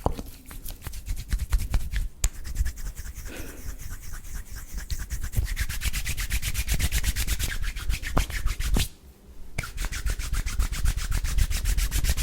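Hands rubbing together close to the microphone in fast, even strokes, with a short pause about nine seconds in.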